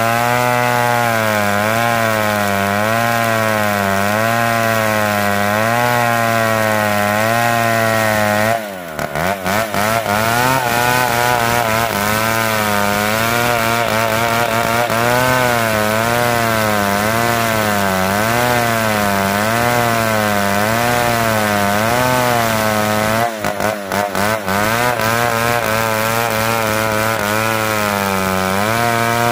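Large two-stroke chainsaw running under load, ripping lengthwise through a big log. The engine pitch wavers up and down steadily as the cut loads it. The revs dip briefly about nine seconds in, and the engine stutters a few times near twenty-four seconds.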